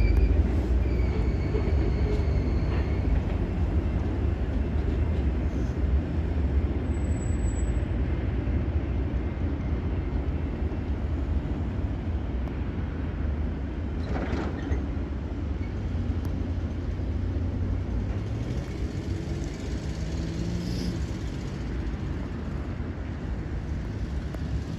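Diesel locomotive engine running with a steady low rumble; about three quarters of the way through, its pitch rises a little as the engine speeds up.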